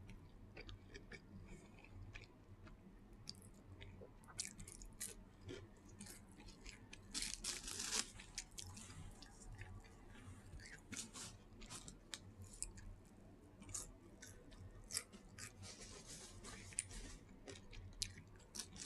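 Close-up chewing with many small wet crunches, a person eating crunchy food, with a louder run of crunching about seven seconds in.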